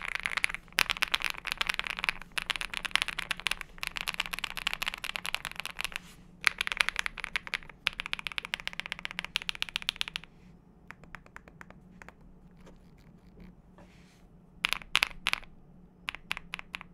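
Fast typing on a Zoom65 mechanical keyboard with lubed KTT Kang White linear switches in a PC plate and foam-filled case, dense runs of keystrokes with brief pauses. About ten seconds in it thins to a few scattered key presses, with a quick flurry of keystrokes a few seconds before the end.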